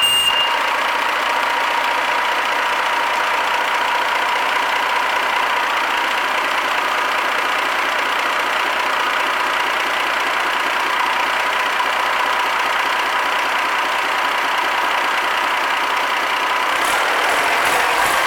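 Yanmar 6CHK-HT six-cylinder turbocharged marine diesel engine running steadily on test, with a steady whine over the engine noise. The engine picks up and grows louder near the end.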